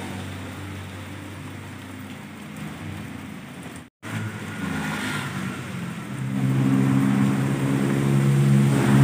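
Heavy rain falling steadily, with a motor engine running underneath that grows louder in the second half. The sound drops out for a moment about four seconds in.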